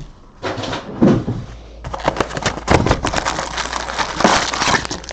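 Hand-handling of a trading-card box and its foil-wrapped packs as they are opened, with irregular crinkling, rustling and small knocks.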